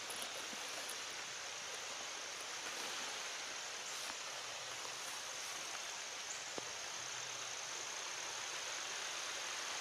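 Steady hiss of rain falling on the leaves of the woods, with a few faint clicks.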